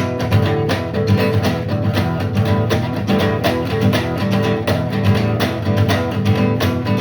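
Band playing the instrumental intro of a blues song: guitar over a steady beat.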